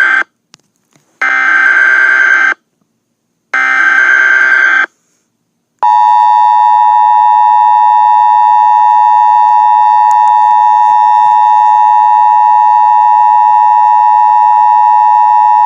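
Emergency Alert System broadcast tones: the tail of one burst and then two more bursts of the buzzing digital SAME header, each about a second and a half long with short gaps between. About six seconds in, the long steady two-tone EAS attention signal follows.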